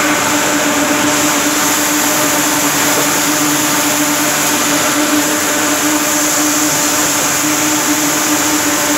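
Ring spinning frames running in a spinning mill: a loud, steady machine whir and hiss with a constant hum underneath.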